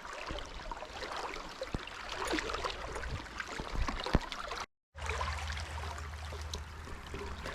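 Flowing river water as a steady rush, with a few scattered knocks. About two-thirds through there is a brief gap of silence, after which a steady low hum joins the water.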